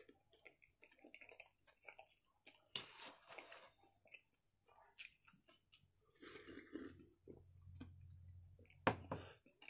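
Faint close-miked chewing of spicy instant noodles, irregular and wet, with scattered sharper clicks of a metal fork against the plate, the loudest near the end.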